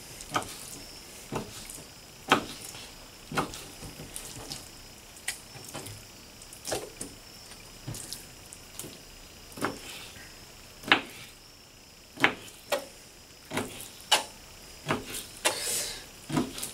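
Kitchen knife cutting raw bowfin fillets into chunks, the blade knocking on the cutting surface with sharp, irregular taps about once a second.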